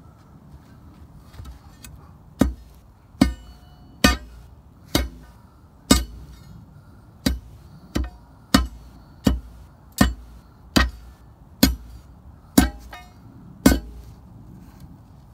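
A steel pry bar is driven down again and again onto a concrete septic tank lid, about fourteen sharp strikes roughly one a second, starting about two seconds in. Some strikes give a short metallic ring. The bar is chipping at the stuck lid to punch a hole for a rope.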